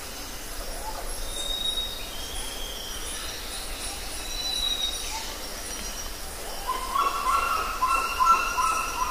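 Outdoor evening ambience with birds calling: thin, high whistled calls come and go throughout, and from about seven seconds in a louder, lower call repeats in quick phrases.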